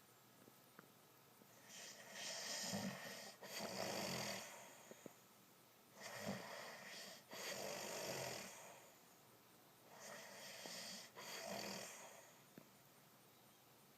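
A man snoring in his sleep: three snoring breaths about four seconds apart, each in two parts, with quiet pauses between them.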